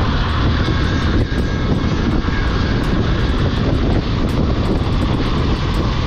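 Strong wind buffeting the microphone of a motorcycle rider's camera at road speed, a steady heavy rumble, with the Honda X-Blade's engine and tyre noise mixed in underneath.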